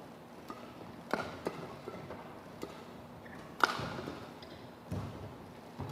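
Badminton rackets striking a shuttlecock during a rally: sharp, separate hits, the loudest about three and a half seconds in, with a heavier footfall thud near the end and a few short shoe squeaks on the court floor.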